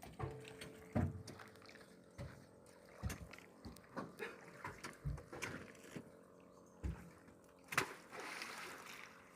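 Irregular knocks and low thuds of a loaded boat being handled in the water, with a splash of water near the end.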